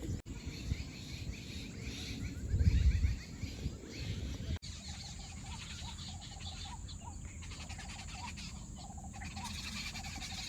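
Outdoor ambience with small birds chirping and a run of short, repeated call notes in the second half. A brief low rumble about three seconds in is the loudest moment.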